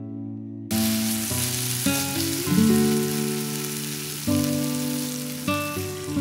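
Spiced onion paste and boiled eggs frying in a wok, a strong sizzle that starts suddenly just under a second in, over plucked acoustic guitar music.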